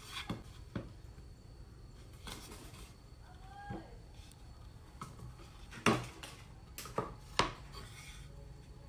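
Thin wooden board panels being handled on a wooden workbench: a series of light knocks and clacks as the boards are set down and tapped against each other and the bench, with the loudest knocks about six and seven and a half seconds in.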